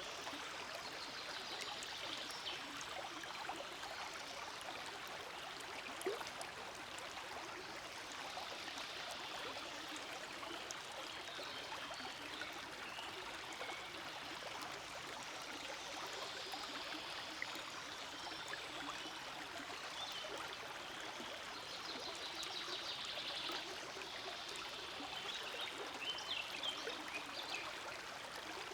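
Forest stream flowing over stones: a steady rushing and trickling of water.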